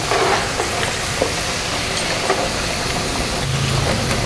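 Hot cooking oil sizzling steadily as beef liver pieces fry, with a few light clicks of a metal skimmer against a wire mesh draining basket.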